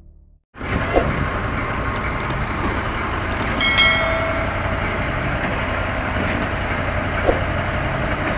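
Heavy truck engine running steadily, with a brief high squeal a few seconds in.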